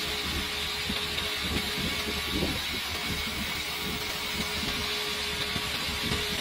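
Two electric centrifugal water pumps running together: a steady motor hum and whine, with an irregular rough rattle. The rattle is the very strange noise of the unrepaired pump, which the repairer puts down to rusted, worn internals needing new bearings, capacitor and seals.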